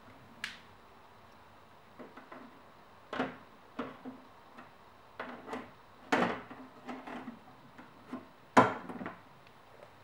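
Plastic bottom tray of a combi boiler being fitted back onto the casing: scattered plastic knocks and clicks, the loudest near the end.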